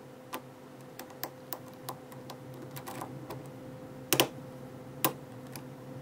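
Hook pick and tension wrench working the pins of an Asec 6-pin oval lock cylinder: scattered small clicks and crunch noises, the sharpest two together about four seconds in and another about a second later.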